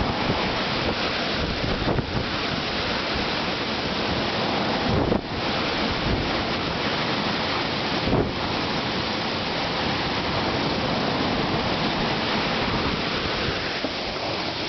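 Strong storm wind blowing hard and buffeting the microphone, a continuous rushing noise that surges and eases unevenly.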